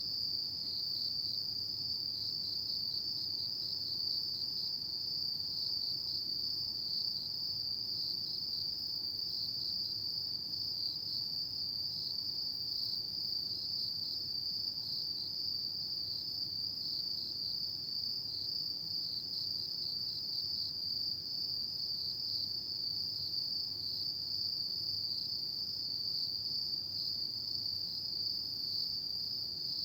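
Autumn insects, crickets, trilling at night in an unbroken high-pitched chorus, steady throughout with a fine rapid pulsing.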